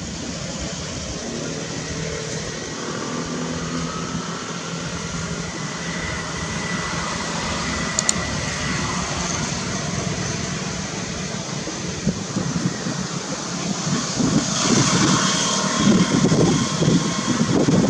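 Steady rushing outdoor background noise that swells into louder, gusty rumbling over the last few seconds. A single sharp mouse-click sound effect comes about eight seconds in, as a subscribe-button graphic appears.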